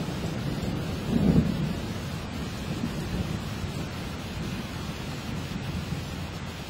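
Thunder rumbling in a lightning storm, swelling to a louder low clap about a second in, over a steady hiss.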